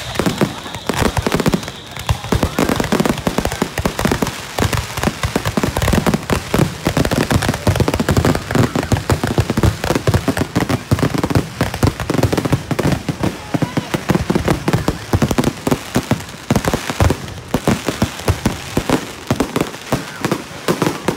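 A malfunctioning fireworks display going off at close range: a dense, unbroken run of pops and crackles, many each second, with people's voices mixed in.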